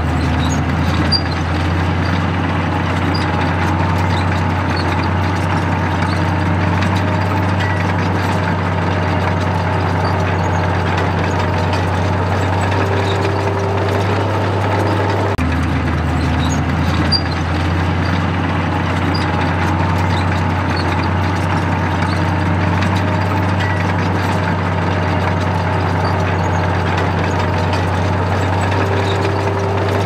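Crawler bulldozer's diesel engine running steadily at constant speed, with an abrupt cut about halfway through where the same stretch of engine sound starts again.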